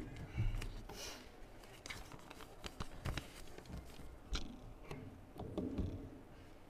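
Faint scattered clicks and knocks of papers and a microphone on its stand being handled at a wooden pulpit, picked up by that microphone.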